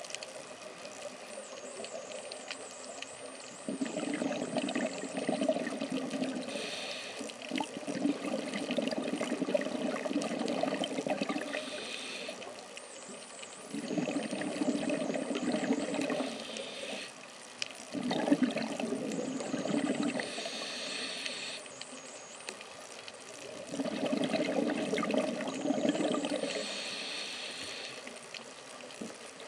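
A scuba diver breathing through a regulator, heard underwater: a short hissing inhale followed by a longer rush of exhaled bubbles, repeating about every five seconds.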